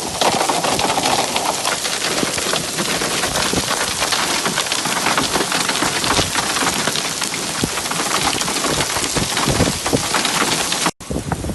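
Heavy hail pelting down, a dense, continuous clatter of many stones striking hard surfaces. It cuts off abruptly near the end and starts again at once.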